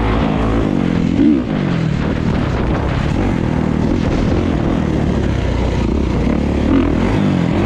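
Kawasaki dirt bike engine heard from on board, its pitch climbing and dropping again and again as the rider works the throttle along the trail, with brief louder revs about a second in and near the end. Wind rushes over the microphone beneath it.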